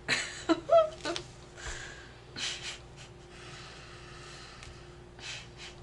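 A person's short pitched vocal sounds, gasp-like and bending in pitch, in the first second, then a few breathy exhales.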